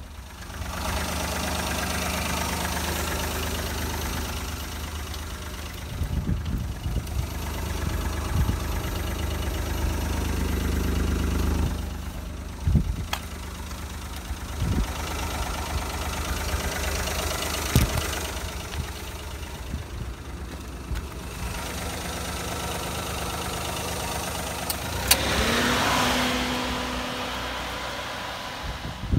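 1996 Daihatsu Hijet van's twin-cam 16-valve engine idling steadily, with a few sharp knocks along the way and a short rising tone near the end.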